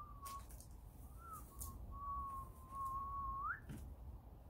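A person whistling a long, slightly wavering single note that breaks off briefly, resumes, and rises sharply at the end. A few faint clicks are heard.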